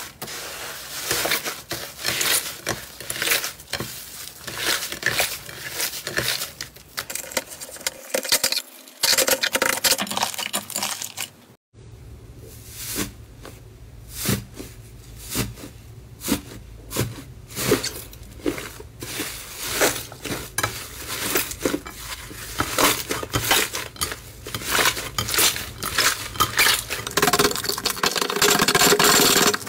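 Hands pulling apart, pressing and kneading fluffy slime on a plate: a dense run of small crackles and pops, with a short gap about twelve seconds in.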